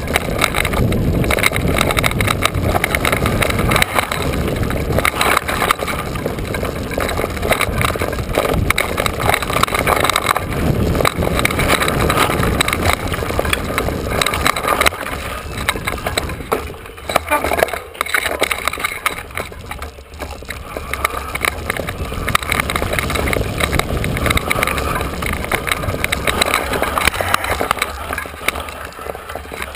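Riding noise of a mountain bike on dirt singletrack, heard from a camera mounted on the rider or bike: tyres crunching over dirt, the bike rattling and jolting over bumps, and wind rumbling on the microphone. The noise eases for a few seconds just past the middle, then picks up again.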